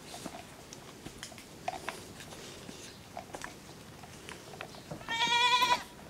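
Faint footsteps on dry fallen leaves, then about five seconds in a goat gives one loud, wavering bleat lasting under a second.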